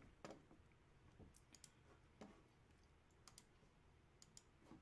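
Near silence with a few faint, sharp clicks scattered through, several coming in quick pairs.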